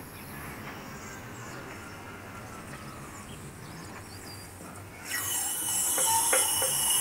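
Hydraulic engine crane's release valve hissing as the hoist lets a suspended engine down. The hiss starts suddenly about five seconds in, is steady with a high whistle-like tone in it, and has a few faint clicks. Before that there is only faint background.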